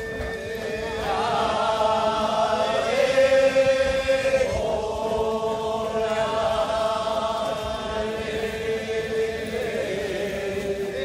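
Kiyari, the traditional Japanese work chant, sung in long drawn-out notes that slide slowly up and down from one held pitch to the next.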